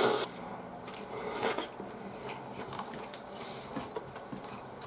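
Cold ramen noodles slurped at the very start, with a second shorter slurp about a second and a half in, the suction weak because much of the eater's tongue has been removed. Then soft chewing and the light clicks of chopsticks against the plate.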